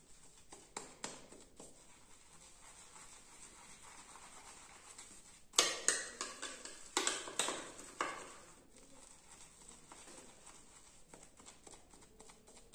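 Shaving brush lathering shaving cream: soft, uneven brushing strokes on skin, with a louder run of quick scrubbing strokes about six to eight seconds in as the brush is worked in the lather bowl.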